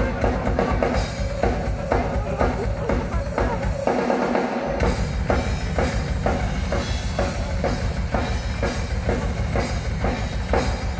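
Rock drum kit played live with two bass drums: a fast, unbroken bass-drum pulse under snare hits and cymbal strikes. The bass drums drop out briefly about four seconds in, then resume.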